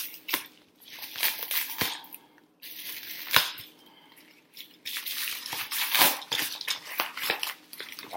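Yellow padded paper mailer being handled and torn open: rustling, crinkling paper with a couple of sharp knocks in the first few seconds, the tearing and crinkling growing denser over the last three seconds.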